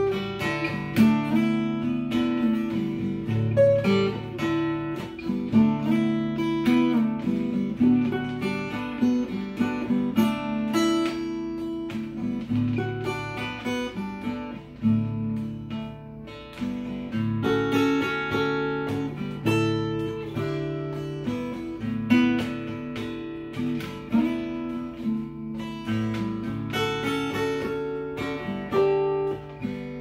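Small-bodied mahogany acoustic guitar played fingerstyle: plucked bass notes under a higher picked melody, with no singing.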